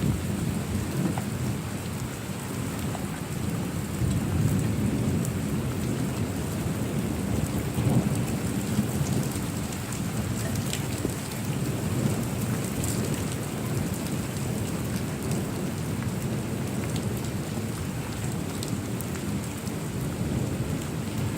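Steady heavy rain with low rolling thunder rumbling under it, swelling near the start and again about eight seconds in, with scattered raindrop ticks.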